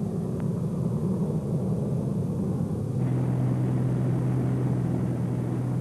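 Airliner in flight: a steady engine rumble. About three seconds in it changes to an even, steadier hum with a low drone.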